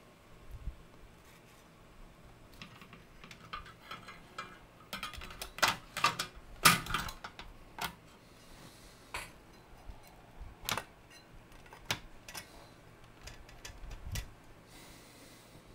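Irregular clicks and light knocks from hands working on a partly dismantled Technics SU-7 amplifier, its circuit boards, wiring and metal chassis being moved and worked loose. The clicks come thickest about five to seven seconds in, then as single clicks every second or two.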